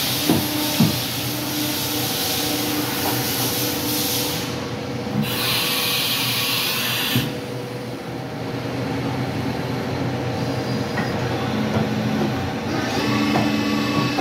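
Haas VF-0 CNC vertical machining center's axis drives running as the table traverses, a whine that comes and goes with each move over a steady machine hum. There are a few short knocks, and a two-second hiss about five seconds in.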